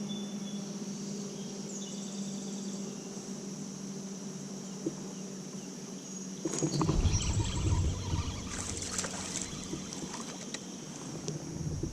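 Fishing kayak on a river: a steady faint background, then from about six and a half seconds in a few seconds of louder knocks and water movement against the hull.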